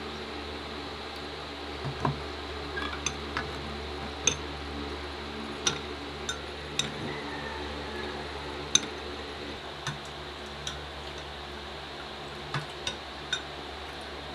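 A spoon clinking against a glass mug a dozen or so times at irregular intervals while stirring oats and milk, over a low steady hum.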